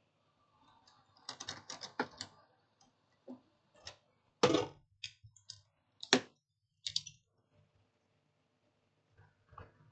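Clicks and knocks of tools and parts being handled on a workbench: a quick run of small clicks, then a few separate sharper knocks, the loudest about four and a half seconds in.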